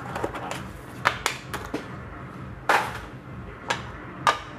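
Hands handling trading-card packaging: a string of sharp clicks and scrapes from a clear plastic card case and a cardboard box, the loudest a little past halfway, over a low steady hum.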